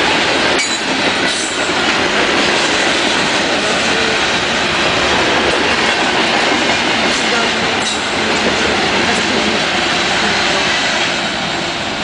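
Freight train cars rolling past: a steady, loud rumble of steel wheels on the rails, with a few sharp clacks. It eases off slightly near the end.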